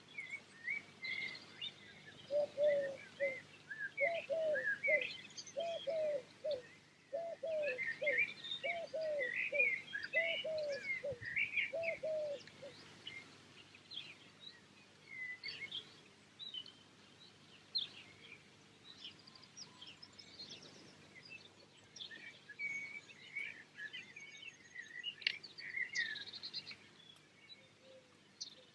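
Several songbirds singing and chirping. For the first half they are joined by a low two-note call repeated about once a second, then the song thins out to scattered phrases.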